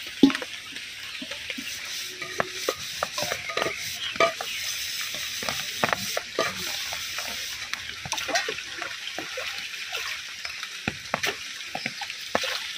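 Steady rain hissing onto a pond, with irregular splashes and knocks as a metal pot and plate are rinsed in the water.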